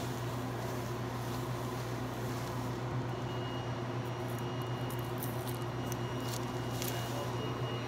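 A steady low hum, with light rustling of paper towels wiping spilled coffee off a counter and a few short clicks as a paper coffee cup and stir stick are handled, the clicks mostly in the second half.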